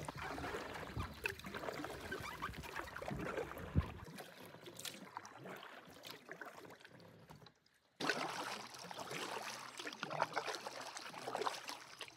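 Canoe paddle strokes in calm water: the blade dipping and pulling, with water trickling off it, in an irregular rhythm.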